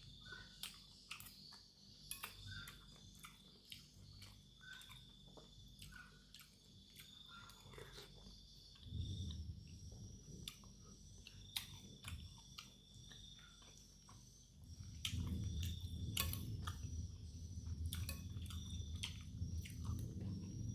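Close-miked chewing of chicken noodles and meatballs, with sharp wet mouth clicks and smacks throughout. The chewing gets louder and fuller about nine seconds in and again from about fifteen seconds. A faint steady high tone sits underneath.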